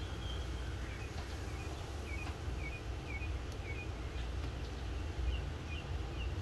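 A small bird chirping over and over in the background, short high chirps coming a few times a second, over a steady low rumble.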